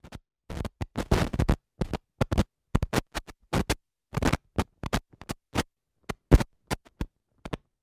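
Old-film countdown sound effect: irregular crackles, pops and short scratchy bursts of worn film, with brief silent gaps between them and no beeps or voice.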